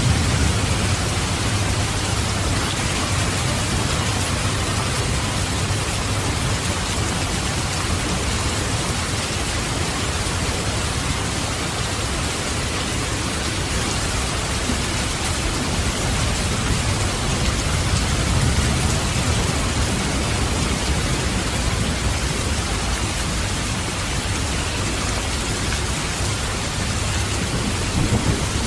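Steady heavy rain falling, with low thunder rumbling in the distance about two-thirds of the way through and again near the end.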